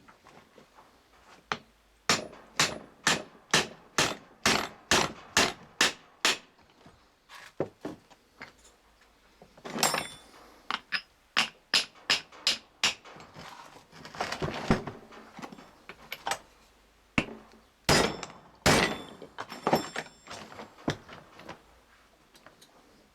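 Hammer blows on the parts of a driveshaft universal joint (Hooke's joint) being pressed together: a quick even run of about a dozen blows, then scattered further blows after a pause.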